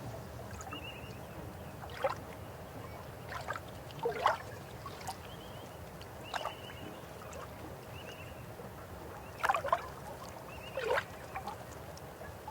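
River water running steadily, with irregular gurgling splashes about seven times. Short high trilled chirps from a bird repeat over it.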